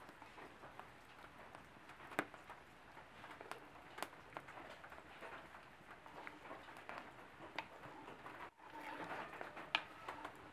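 Spoon stirring thick coconut-milk cassava curry in a clay pot: soft wet stirring with a few scattered sharp clicks.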